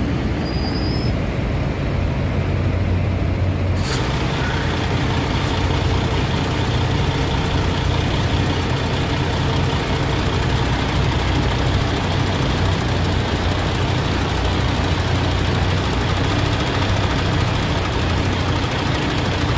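Tractor-trailer's diesel engine running steadily with a low hum as the rig manoeuvres to back its refrigerated trailer into a loading dock, with a short click about four seconds in.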